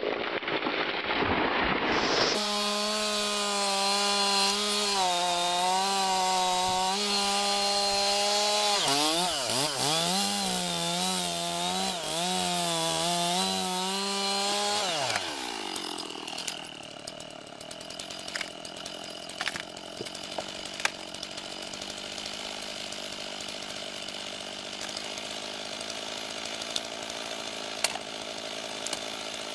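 Two-stroke chainsaw running at full throttle through a large log, its pitch dipping several times as the chain bogs under load. About 15 s in it winds down. After that a quieter steady hum runs, broken by a few sharp knocks.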